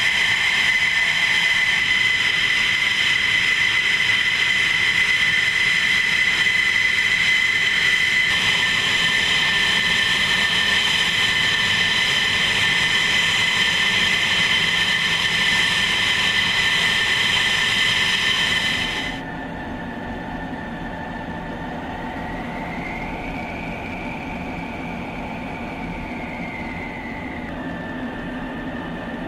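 F-16 fighter jet engines running on the ground: a steady high turbine whine over a loud rushing hiss. About nineteen seconds in, the sound drops suddenly quieter to a lower hum, with a whine that rises and falls.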